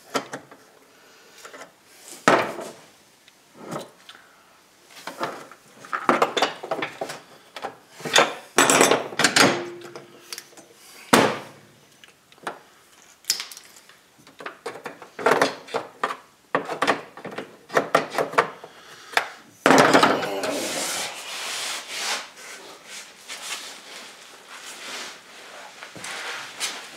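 Irregular scraping, rubbing and sharp knocks of hand tools and loose parts being handled against a UTV's plastic body panels and frame, with a longer stretch of rubbing about two-thirds of the way through.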